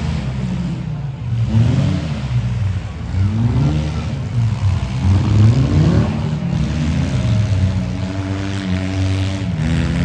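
Engines of compact demolition-derby cars revving hard, their pitch rising and falling again and again as the cars accelerate and back off, several engines overlapping.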